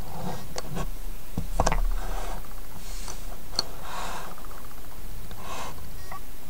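Handling noise of a phone in a plastic case being fitted into an aluminium clamp phone mount: scattered clicks, taps and short scrapes, the loudest a sharp knock about a second and a half in, over a steady low hum.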